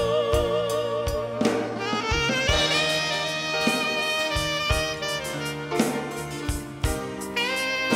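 Live band playing an instrumental break in a slow ballad: a lead melody with wavering held notes and pitch bends over sustained bass and a steady drum beat. A held note gives way to a new melodic phrase about a second and a half in.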